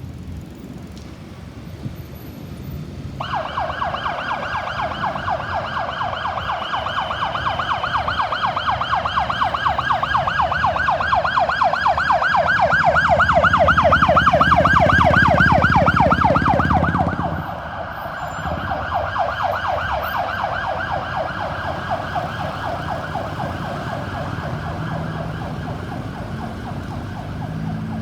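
Ambulance siren in a fast yelp, sweeping quickly up and down. It starts about three seconds in and grows louder, with engine and road rumble swelling as it comes closest. Then it drops sharply and carries on fainter as it moves away.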